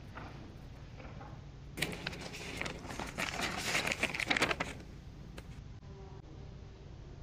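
Paper rustling and crinkling as it is handled, a dense crackle lasting about three seconds that starts about two seconds in, over a faint low room hum.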